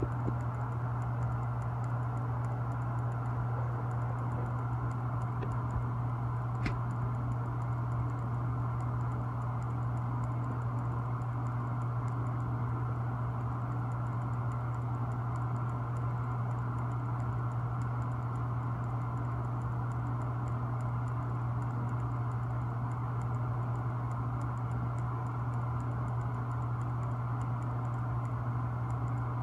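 A steady low mechanical hum that does not change, with faint rapid ticking over it.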